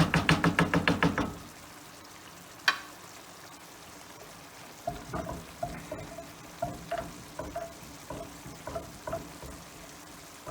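A metal kitchen utensil stirring and knocking against a pot or pan on the stove: a quick rattle of about a dozen taps at the start, one sharp knock, then irregular ringing knocks and scrapes from about halfway, over a faint steady sizzle.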